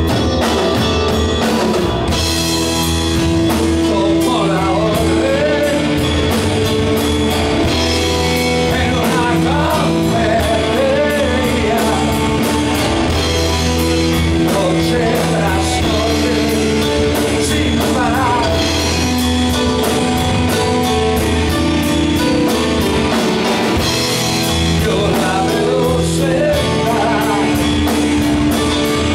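Live progressive rock band playing: a man sings over a Yamaha Motif keyboard, bass guitar and drum kit. The sung phrases waver in pitch over sustained keyboard chords and a steady drum beat.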